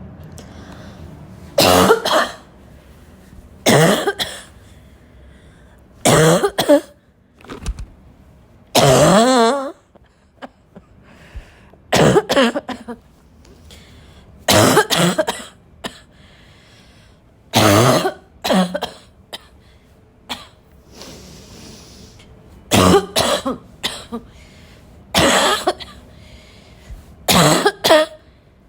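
A person's intense barking cough, in loud harsh bursts every two to three seconds, often two coughs in quick succession, with one longer, drawn-out voiced cough about nine seconds in.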